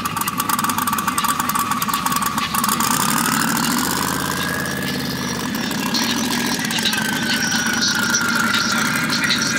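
A vehicle engine running, with a steady whine that rises in pitch a few seconds in, holds, and eases back down near the end.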